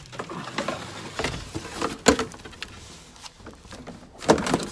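Audi Q7's plastic underbody cover being slid back into place under the car: scraping and rubbing, with a sharp knock about two seconds in and a louder clatter of knocks near the end.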